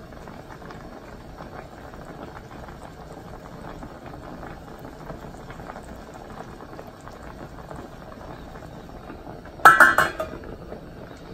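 Chicken adobo bubbling at a steady simmer in a stainless steel pot. About ten seconds in, the stainless steel lid is set back on the pot with a brief burst of metal clanks.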